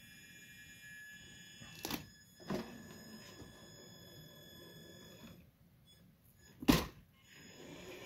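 Traxxas TRX-4 RC crawler's electric drive whining steadily in several high tones, cutting off about five seconds in. A few knocks come through it, the loudest a sharp thunk near seven seconds.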